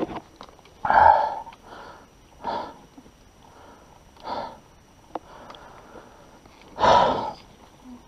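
A person breathing hard, with four heavy, noisy exhalations a second or two apart; the first and last are the loudest.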